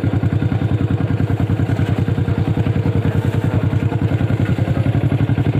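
Motorcycle engine running at low, steady revs, with an even, rapid pulsing of about ten beats a second.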